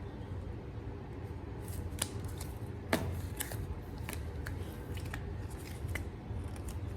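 Paper and card inserts from a camera box being handled: light rustling with scattered sharp clicks and taps, the sharpest about three seconds in, over a steady low hum.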